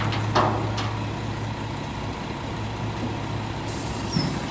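Front-loader garbage truck's engine idling steadily, with a sharp clank about half a second in and a dull thump near the end.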